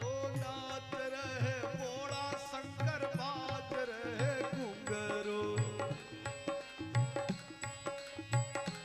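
Devotional bhajan music: a harmonium and a steady hand-drum beat, with a wavering, ornamented sung line over the first few seconds. After that the harmonium holds steady chords over the beat while hands clap along.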